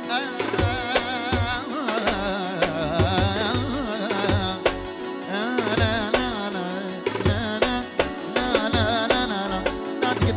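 Albanian folk music: an ornamented melody that wavers in pitch, over a drum beat with regular bass pulses.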